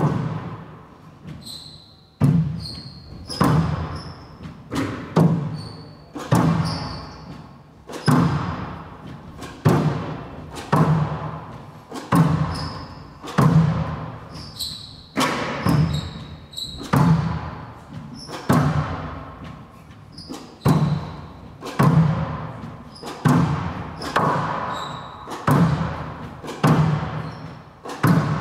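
Squash rally of straight drives: sharp cracks of racket on ball and ball on the front wall, a loud one about every second and a half with lighter hits between, each ringing out in the big hall's echo. Short high squeaks are mixed in with the hits.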